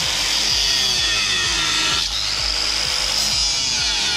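Corded angle grinder with a cutting disc running at speed and cutting through a speargun barrel tube. Its high whine dips in pitch as the disc bites and recovers, about halfway through and again near the end.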